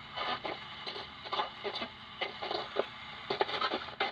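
Sansui portable radio-cassette player's small speaker playing a radio broadcast in thin, choppy bursts over a steady hiss; reception is weak indoors without an antenna.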